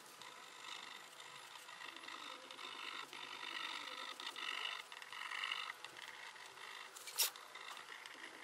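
Light scratchy strokes of a fine-tipped tool working over a glue-coated papier-mâché surface, coming and going with the hand's movement. There is one sharp click about seven seconds in.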